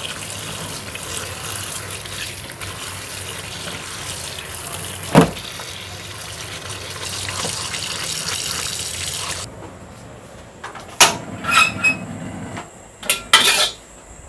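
Tap water running into a plate of mushrooms in a stainless steel sink as hands rub and rinse them, with one sharp knock about five seconds in. The water stops a little past halfway, followed by a few sharp clatters.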